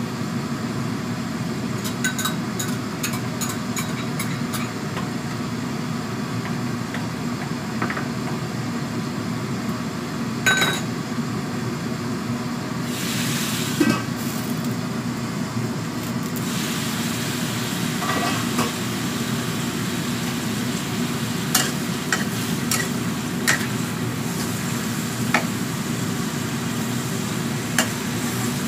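Sliced bottle gourd cooking in a wok over a gas burner, under a steady low hum. About ten seconds in, the metal wok lid clanks, and a hiss of steam follows as the lid is lifted. Through the second half, a metal spatula scrapes and taps against the wok as the gourd is stirred and sizzles.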